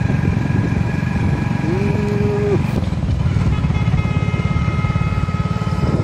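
Steady rumble of a moving vehicle's engine with road and wind noise. A short held hoot sounds about two seconds in, and faint high steady whining tones come in during the second half.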